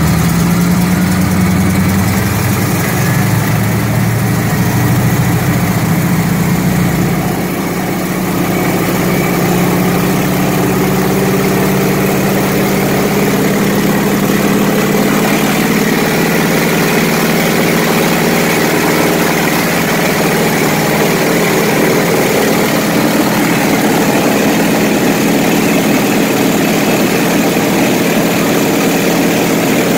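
Piston engine and propeller of a vintage tandem-seat trainer aircraft, heard from inside the cockpit. About eight seconds in, the power comes up and the engine's pitch rises over several seconds to takeoff power, then holds steady through the takeoff run and climb-out.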